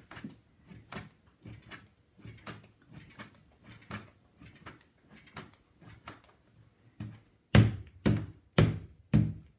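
Clay being wedged by hand on a tabletop: a steady run of soft thuds, several a second, as the lump is pushed and rolled, becoming heavier thumps about two a second for the last two seconds.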